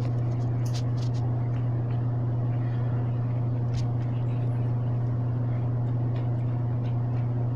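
A steady low mechanical hum, like a motor running, with a few faint clicks over it.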